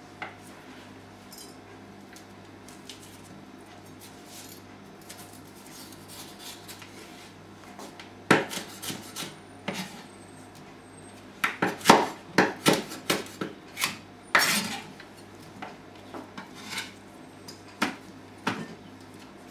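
Kitchen knife cutting red bell pepper on a wooden cutting board: sharp knocks of the blade on the board in quick clusters, starting about eight seconds in after a quieter stretch of small ticks.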